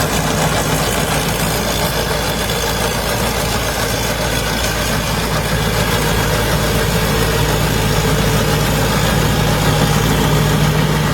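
Engine of a Chokwijit combine harvester running steadily at idle, its low hum growing a little louder from about halfway through.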